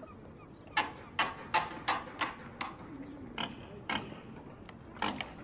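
Waterbird calling: a run of about six short harsh calls, roughly three a second, then a few more spaced further apart.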